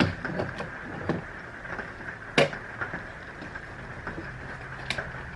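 Scattered plastic clicks and knocks as an old drip coffee maker's parts are handled and fitted, the sharpest knock about halfway through, over a faint steady hum.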